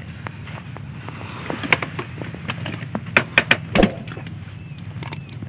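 A boat engine running steadily with a low hum, and a cluster of sharp clicks and knocks in the middle of it.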